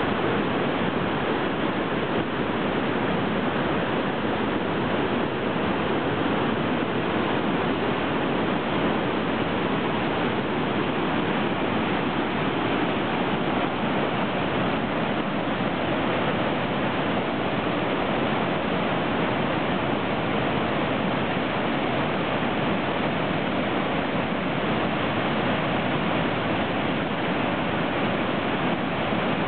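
Waterfall in spate, white water pouring over and around large boulders with a steady, unbroken rush.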